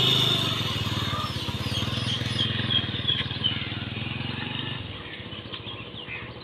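Honda motorcycle engine running as the bike pulls away and rides off, fading out after about five seconds.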